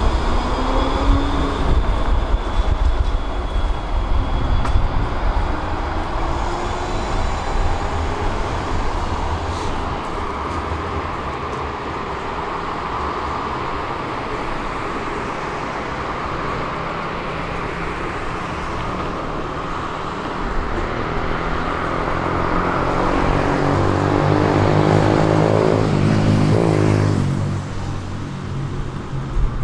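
Low-floor electric tram pulling away from the stop, its traction motors whining and rising in pitch as it accelerates over the first several seconds. Then a steady hum of night city traffic, with a vehicle passing by that swells to its loudest about 25 seconds in and cuts off sharply just after.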